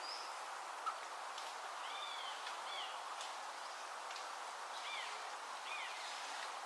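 Short chirping bird calls, four arched notes in two pairs, over a steady outdoor background hiss, with one brief click about a second in.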